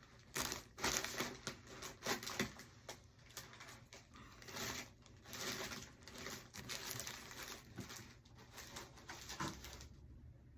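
Packaging crinkling and rustling as it is handled, with irregular small clicks and crackles that ease off near the end.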